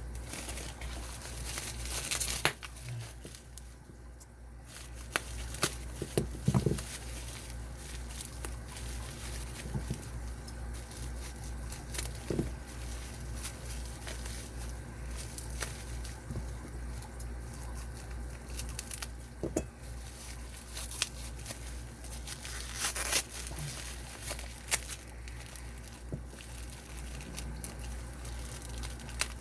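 Packaging being handled: paper or plastic crinkling and tearing in irregular rustles, with scattered small knocks as boxes and locks are moved aside, over a low steady hum.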